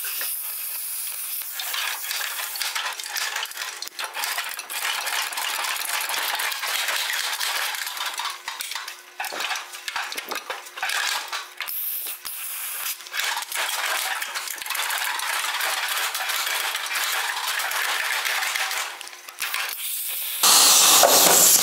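Sheet metal of an old car body being cut: a steady hissing, crackling cutting noise, broken by short pauses about nine to eleven seconds in. A louder, fuller noise starts about a second before the end.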